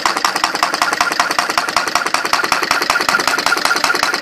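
Homemade single-cylinder Stirling engine with a balloon diaphragm, copper-wire crank and CD flywheel, running with a rapid, even clicking. It is picking up a little speed as cold water cools its top can.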